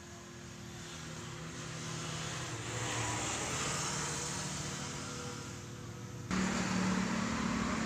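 Background noise of a vehicle passing, swelling and then fading, followed by an abrupt cut about six seconds in to a steady low hum with noise.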